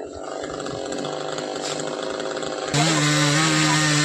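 Chainsaw engine running at a low steady speed, then jumping abruptly to a loud, steady high-speed note at full throttle about two-thirds of the way in.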